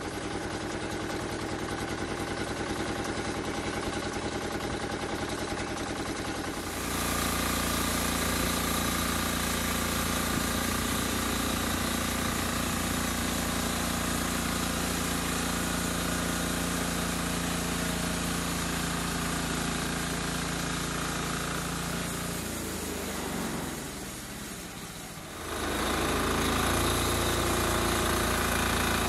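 Engine of a homemade bandsaw sawmill running steadily. It gets louder about seven seconds in, slows and fades about twenty-three seconds in, then comes back up abruptly near the end.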